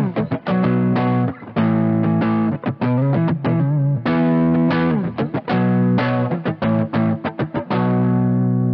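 Johnson JH-100 hollow-body electric guitar on its neck pickup through an overdriven amp, playing a choppy riff of short chords and notes, then a chord left to ring near the end.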